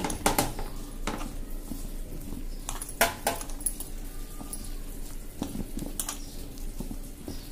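A hand mixing a wet coating of flour and red spice paste in a steel pan, with scattered sharp clinks against the metal, two close together near the middle.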